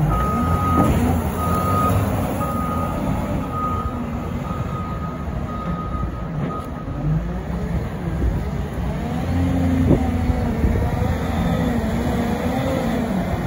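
CAT 950M wheel loader's backup alarm beeping steadily, about two beeps a second, for the first six seconds or so while it reverses, then stopping. The loader's diesel engine runs throughout and revs up and down as it drives forward to load snow into a dump truck, with one sharp knock about ten seconds in.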